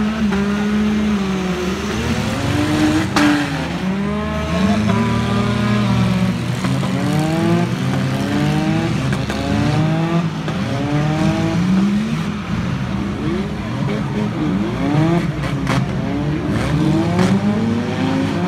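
Several demolition derby cars' engines revving up and down over one another as they push and ram, with a sharp bang about three seconds in.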